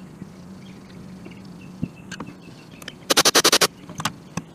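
A rapid ratcheting rasp, about half a second long, a little over three seconds in, from hand work on the excavator's hydraulic fittings. A few light clicks and knocks fall around it over a steady low hum.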